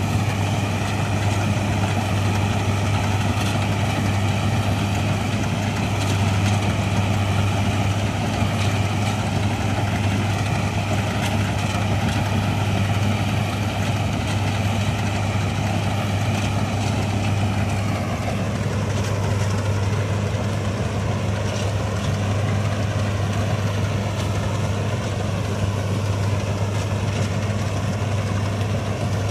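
A 1965 Ködel & Böhm Köla Combi combine harvester running steadily with a constant low engine hum. About two-thirds of the way in, its higher machinery sound eases off a little while the hum carries on.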